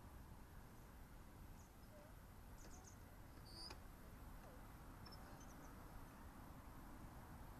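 Near silence: a faint low outdoor rumble with a few brief, faint high chirps from small birds, a cluster of them just past the middle.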